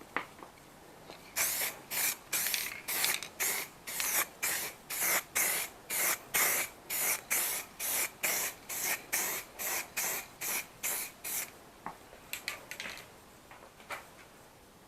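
Aerosol rattle can of primer spraying in a quick run of short hissing bursts, about two to three a second, as it lays a coat onto the car's A-pillar. A few faint clicks follow near the end.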